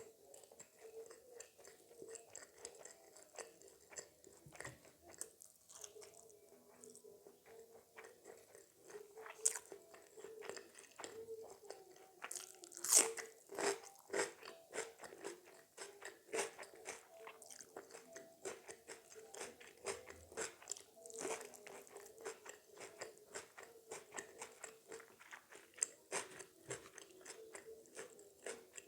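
Close-miked eating: a person chewing and crunching food with a quick, continuous run of crisp bites and chews. The loudest crunch comes about halfway through.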